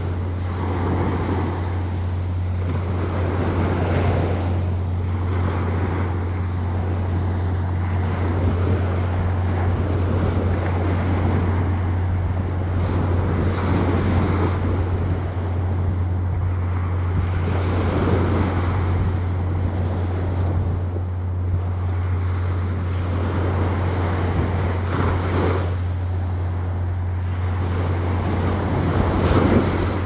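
Surf breaking and washing up a sandy beach, swelling every few seconds, over a steady low rumble of wind on the microphone.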